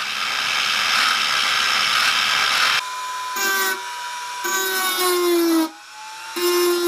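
Lathe-mounted angle grinder running with its abrasive disc grinding the welded-on end of a gas-turbine blade, a steady harsh hiss. About three seconds in, a hand-held rotary tool takes over with a high whine that sags in pitch and cuts out briefly a few times as it works the blade.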